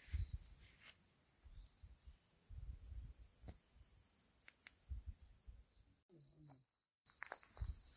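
Crickets chirping steadily in a pulsing high note, with scattered low thumps. The sound cuts out briefly about six seconds in, then the chirping returns louder.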